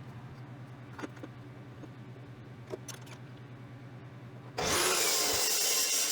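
A steady low hum with a few light clicks, then about four and a half seconds in a loud power tool starts up on metal and runs with a harsh, dense rushing noise.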